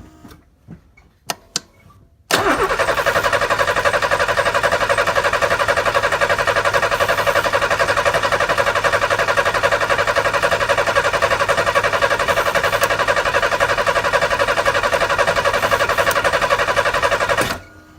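Pontiac Fiero's engine being cranked by the starter for about fifteen seconds, starting and stopping abruptly, without catching: it fires but won't start on its Bosch Platinum spark plugs, a fault the owner cured by switching to AC Delco copper plugs. A couple of faint clicks come just before the cranking.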